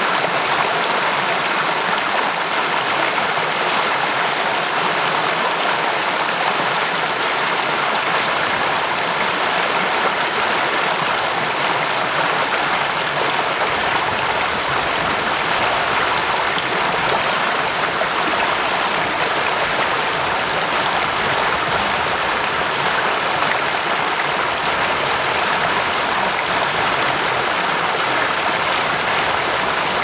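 Shallow rocky stream spilling over a low cascade of stones into a pool: a steady, even splashing of running water.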